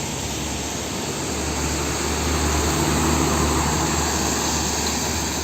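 Steady hiss of water spraying onto a muddy toy cement mixer truck to wash the mud off, with a low steady hum underneath that grows stronger about a second in.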